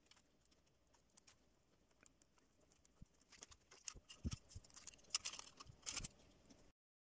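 3D-printed plastic iris mechanism being turned by hand, its shutter blades sliding and rubbing with faint scattered clicks. The clicks and scraping grow busier and louder in the second half, with a couple of dull knocks as the parts are handled.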